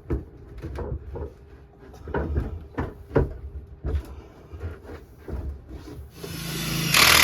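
Knocks and scraping of a heavy air handler being slid and shifted over wood. Near the end comes a loud whirring noise that swells and then stops abruptly.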